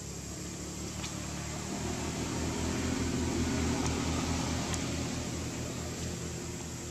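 A low engine hum comes in about two seconds in, swells, then fades toward the end, like a motor vehicle passing at a distance. Under it runs a steady high-pitched insect drone.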